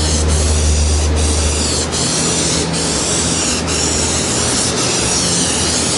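Hissing spray of a gloss check product being sprayed over freshly repaired car body panels, running steadily with brief breaks about once a second. The glossy coat is put on to show up any waves or lines left in the bodywork.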